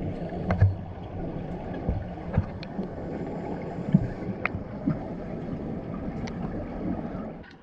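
Muffled underwater sound of a pool picked up by a submerged camera: a steady low rushing noise with scattered clicks and knocks. It drops away abruptly near the end.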